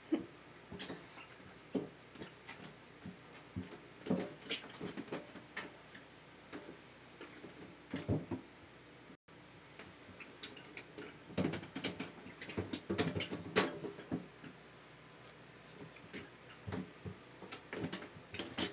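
A cat scrabbling in an empty bathtub: claws and paws tapping and skittering on the tub surface, with a small dog toy knocking about. Irregular flurries of light clicks, busiest in the middle and again near the end.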